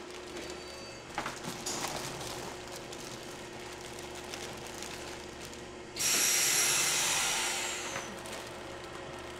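A load of sausages sliding out of a plastic-lined crate onto a stainless steel table, with the bag rustling: a loud rush that starts suddenly about six seconds in and dies away over two seconds. Under it runs a steady machine hum, with a few light knocks in the first two seconds.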